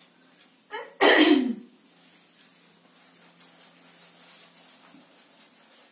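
A woman coughs to clear her throat about a second in, loud and brief. Then the faint rubbing of an eraser wiping a whiteboard.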